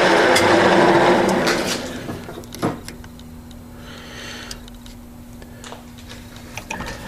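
Grizzly G4003G metal lathe running, then switched off about a second and a half in and spinning down. Afterward a low steady hum remains, with a knock and a few light clicks of handling as a digital caliper is set on the part.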